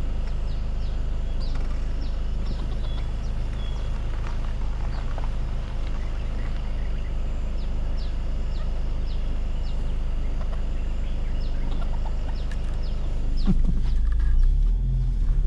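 Ford Escape's engine running with a steady low hum, with many short high chirps scattered over it.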